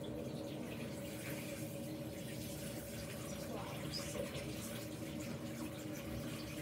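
Tap water running steadily into a sink, with a steady hum under the flow.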